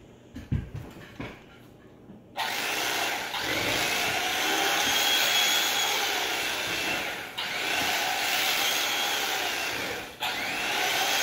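An electric carving knife runs with a steady buzz as its twin reciprocating blades saw through angel food cake. It starts about two seconds in, dips briefly about halfway through, cuts out for a moment near the end, then starts again. A few light knocks come before it starts.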